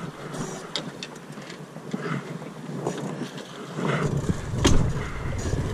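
Drift-boat oars rowing in the river: blade strokes swishing and splashing in the current, with scattered knocks from the oars and boat fittings. It grows louder about four seconds in as a stroke splashes close by.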